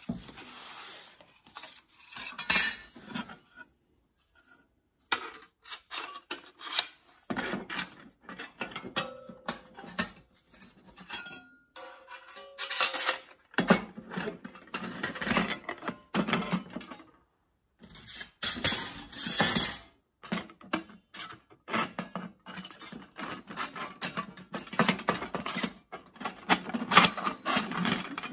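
Thin metal plates of a flat-pack Firetrough kindling stove clinking, scraping and sliding together as its ends and sides are slotted into each other. The clatter comes in bursts with short pauses between.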